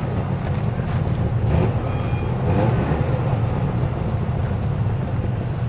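A Subaru 360's small air-cooled two-stroke two-cylinder engine running steadily at low revs as the car creeps forward.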